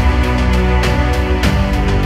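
Background music: held chords over a deep bass with occasional drum hits; the bass note changes about a second and a half in.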